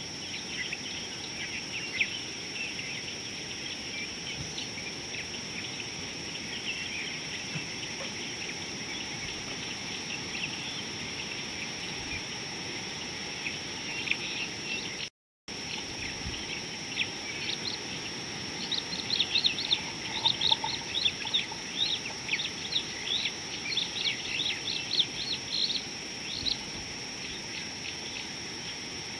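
Dry-bush ambience: many small birds chirping over a steady high insect drone. The chirping gets busier and louder in the second half, and the sound cuts out for a moment about halfway.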